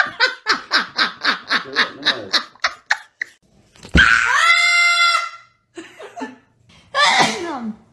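A person laughing in a quick run of short bursts, about five a second, then a sharp knock about four seconds in followed by a long high-pitched cry, and a shorter falling cry near the end.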